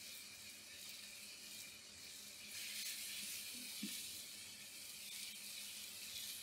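Faint, steady sizzling from a hot sizzler plate as grilled vegetables are pushed off a tandoor skewer onto it, a little louder for a moment in the middle.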